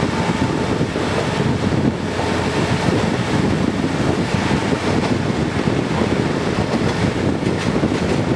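Running noise of a diesel railcar heard from inside beside an open window: a steady rumble of engine and wheels on the rails, with wind across the microphone.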